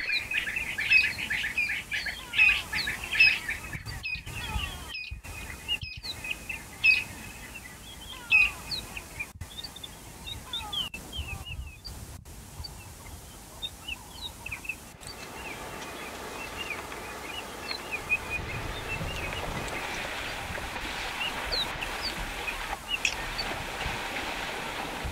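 Bush ambience of many birds chirping, with short quick rising and falling calls over a steady background hiss. The sound cuts out briefly several times in the first half, and the background becomes a fuller, steadier hiss about halfway through.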